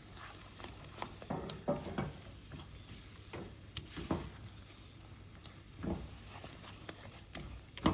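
Spoon stirring a thick chocolate and nut mixture in a pan on the stove, with irregular soft scrapes against the pan.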